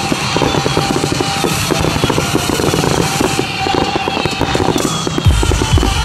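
Fireworks display: dense crackling and popping of bursting shells, with heavier low booms starting near the end, over music played with the show.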